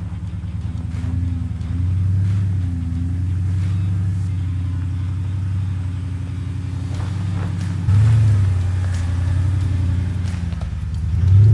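Porsche Cayenne S V8 engine working at low revs under load as the SUV crawls over rough ground. Its note rises in steps, about two seconds in and again about eight seconds in, with a few faint knocks over it.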